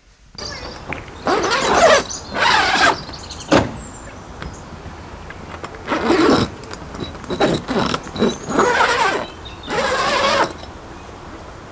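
Canvas safari tent door zip being pulled open from inside in about seven rasping strokes.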